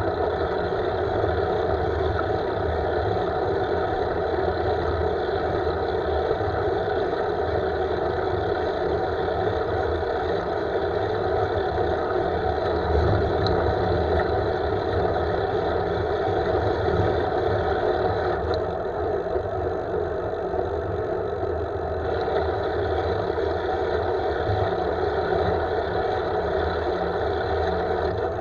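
Steady wind and tyre rumble picked up by a camera mounted on a road bike's handlebars while riding on asphalt.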